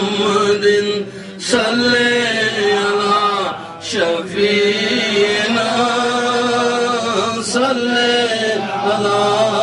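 A man chanting an Urdu naat in praise of the Prophet Muhammad. He draws out long, wavering held notes, with short breaths about one and a half and four seconds in.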